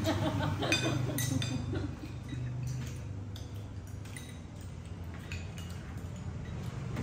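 Metal spoons clinking against small eating bowls as several people eat, with a few sharp ringing clinks in the first two seconds and scattered lighter ones after, over a steady low hum.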